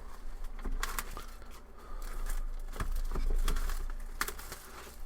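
A cardboard Pokémon trading-card box being handled at a table: scattered taps, scrapes and crinkles.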